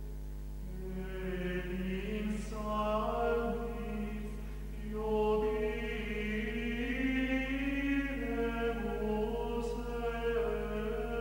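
Chant-like singing as background music: voices hold long notes and move slowly from pitch to pitch, over a steady low hum.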